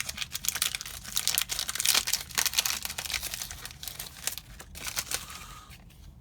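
Pokémon booster pack wrapper crinkling and tearing as it is opened by hand: a dense run of crackles that dies away near the end.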